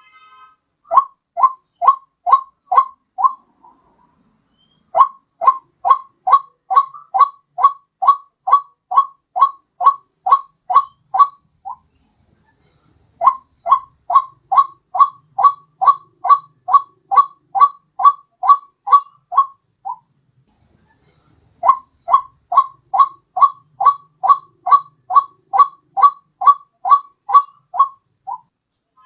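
White-breasted waterhen (ruak-ruak) calls played as a bird lure: a loud, evenly repeated falling note, about two a second. The notes come in bouts of several seconds with short pauses between them.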